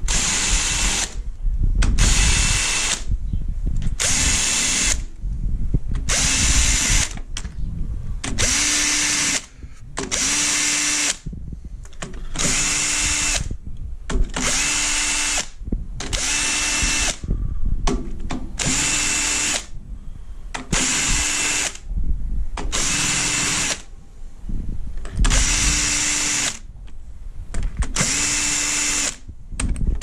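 Cordless drill-driver with a socket extension spinning out the valve-cover screws on a three-cylinder EB petrol engine. It runs in short whirring bursts of about a second each, one screw after another, with brief pauses between.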